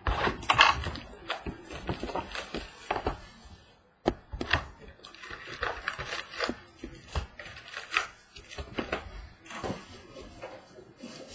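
A cardboard Prizm football card box being opened and its stack of card packs lifted out and set down on a table: a run of rustles, taps and cardboard scrapes, with a brief pause just before the middle and a sharp tap right after it.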